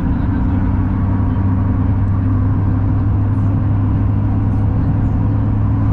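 Steady road and engine noise inside a moving car, a constant low rumble with a hum underneath.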